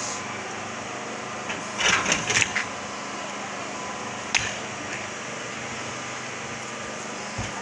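Cloth rustling and the wire grille of an electric fan clattering as the fan is pulled out of a metal storage trunk, with a cluster of rattles about two seconds in, a sharp click a little after four seconds and a low knock near the end, over a steady background hum.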